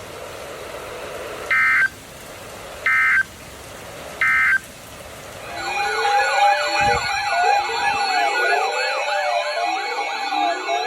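Three short bursts of EAS (Emergency Alert System) end-of-message data tones, a shrill digital screech, about a second and a half apart, closing a National Weather Service warning. About five seconds in, a rapidly rising and falling siren-like alert tone starts over steady electronic tones.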